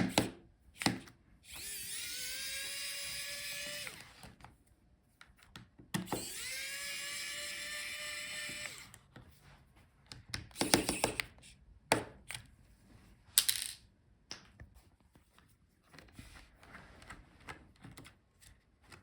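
Small electric screwdriver spinning out laptop screws in two runs of two to three seconds each, its motor whine rising as it spins up and then holding steady. Sharp clicks and taps of small parts being handled follow.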